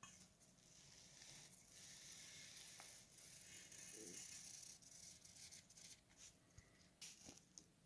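Near silence: faint room hiss with a few soft clicks and rustles.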